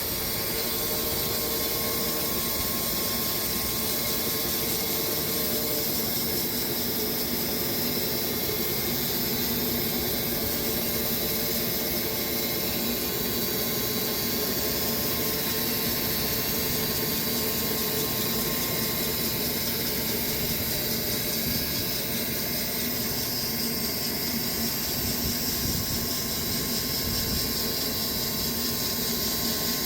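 Sawmill running steadily through a cut in a Bastogne walnut log. The noise is even and unbroken throughout, with faint steady tones in it.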